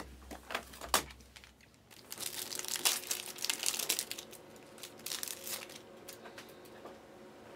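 Foil wrapper of a basketball trading-card pack being torn open and crinkled by hand for about four seconds, after a couple of sharp clicks in the first second.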